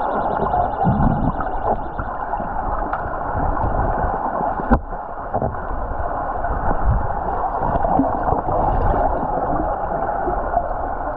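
Underwater pool sound heard through a submerged camera: a steady muffled rush of churning water and bubbles from swimmers kicking overhead, with one sharp click a little before halfway.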